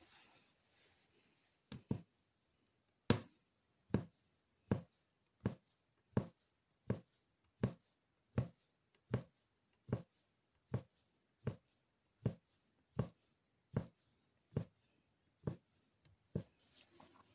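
Punch needle stabbing in and out of embroidery fabric stretched taut on a frame: a steady series of short taps, a little over one a second, starting about two seconds in.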